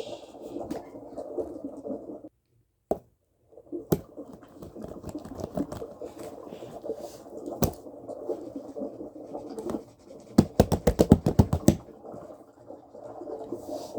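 Close scratching and rustling handling noise, broken by a few sharp clicks, with a quick run of about ten scratching strokes near the end.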